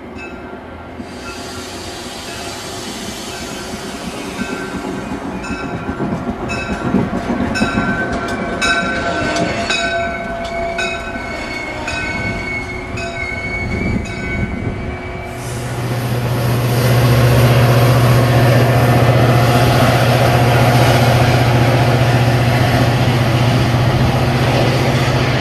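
Commuter train of bilevel passenger cars rolling into a station, with steady high-pitched brake and wheel squeal and a run of regular wheel clicks over the rail joints. About fifteen seconds in the sound changes abruptly to a loud, steady low rumble with hiss as a diesel locomotive comes toward the listener along snow-covered track.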